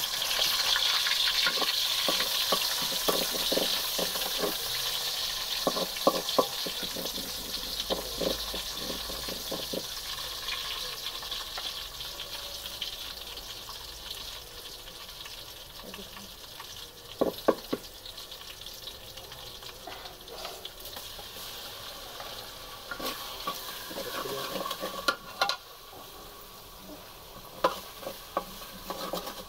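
Onions frying in hot oil in a metal pot. The sizzle is loud at first and dies down gradually, while a wooden spoon knocks and scrapes against the pot as they are stirred.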